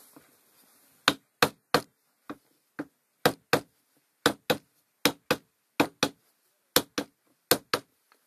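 Hammer blows on a tubular driver seating a new seal into a tractor transmission input shaft housing: about seventeen sharp knocks, mostly in quick pairs, starting about a second in.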